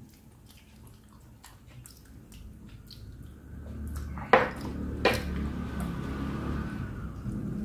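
Metal spoon clinking against glass dishes as sinigang broth is spooned onto rice, with soft liquid dribbles; two sharper clinks come about four and five seconds in.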